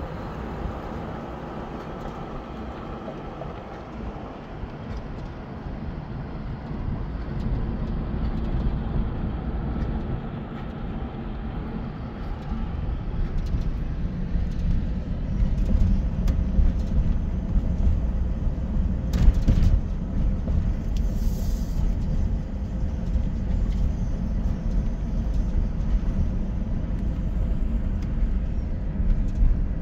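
Car driving, heard from inside the cabin: a steady rumble of engine and tyres on the road that grows louder over the first half.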